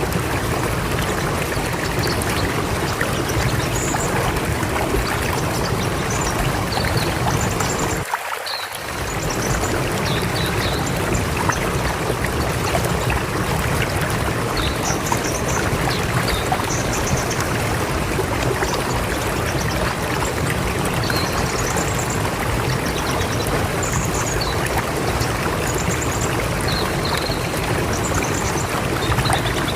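River water flowing steadily in a full, even rush, with short high bird chirps scattered over it. The low part of the rush drops out briefly about eight seconds in.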